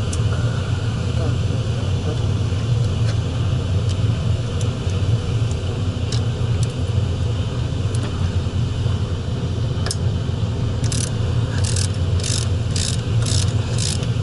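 Steady low rumble, with scattered metallic tool clicks. Near the end comes a run of evenly spaced clicks, about two a second, from a socket wrench loosening an alternator mounting bolt.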